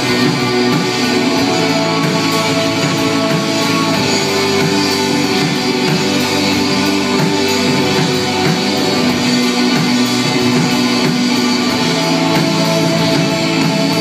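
Live rock band playing electric guitars over a drum kit, with a steady beat.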